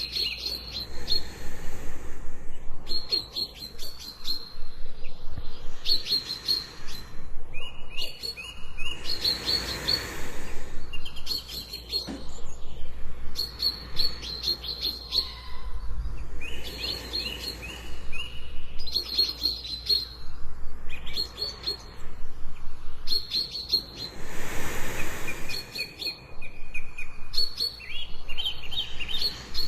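Jungle birds chirping in rapid high trills, repeating in short bouts every second or two. Two soft rushing swells come through, about ten seconds in and again near the end.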